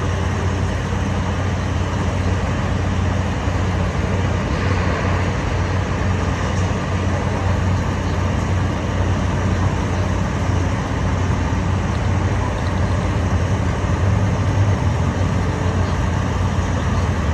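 Heavy diesel construction machinery running steadily with a constant low hum, the engine noise of a large concrete pour.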